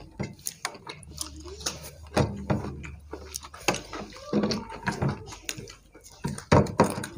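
Eating rice and chicken curry by hand: irregular wet chewing and lip-smacking clicks, with fingers squishing and mixing rice on plates.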